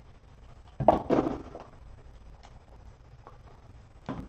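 A cardboard trading-card box set down on the table with a loud thump and a short scrape about a second in, then a lighter knock near the end as it is placed again.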